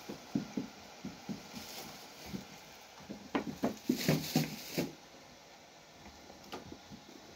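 Hands patting and pressing bread dough on a metal tray and a floor cloth: a series of soft pats, with a quicker, louder run of slaps about three to five seconds in.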